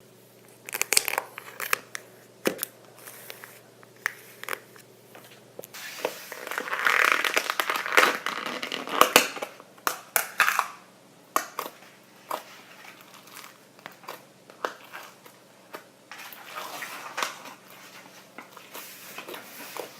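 Floam slime being squeezed and pressed by hand, its foam beads crackling and crunching in irregular bursts, denser and louder around the middle of the clip.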